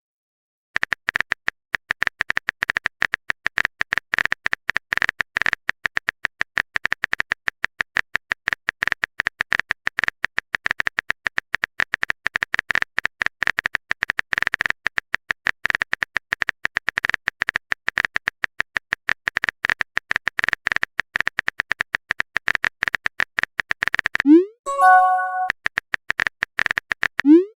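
Rapid clicking of a phone keyboard typing sound effect, going on without a break for over twenty seconds. Near the end it gives way to a short rising swoop and a chiming message notification tone, which comes twice.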